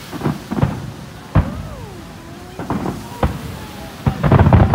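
Japanese aerial firework shells bursting. A few separate sharp bangs come first, then a quick run of many reports near the end, with a wavering sliding tone between the bangs in the middle.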